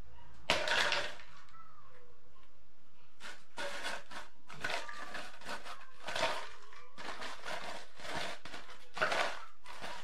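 Stainless steel dog bowl clattering: a sharp loud clang about half a second in, then repeated bursts of clanking and rattling, loudest near the middle and near the end. It is a deliberate sudden noise made to test a puppy's reaction.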